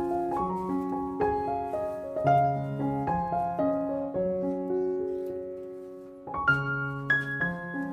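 Background piano music: a melody of struck notes over chords, dying away about six seconds in before a new phrase starts.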